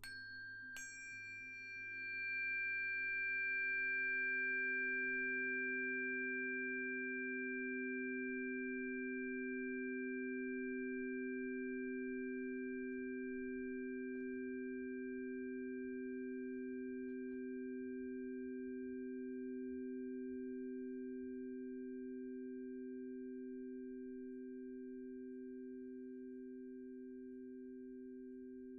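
Singing bowls ringing. Two quick strikes at the start set high bright tones ringing, while two low, pure tones swell over the first few seconds and then hold, slowly fading with a gentle waver.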